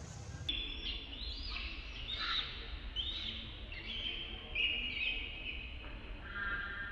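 A string of short, high-pitched chirping calls, about a dozen, some rising and falling in pitch, over a steady low rumble.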